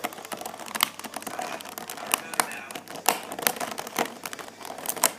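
Many irregular, sharp plastic clicks and clacks of a disassembled Rubik's cube being handled, its loose pieces knocking as they are pressed back into place.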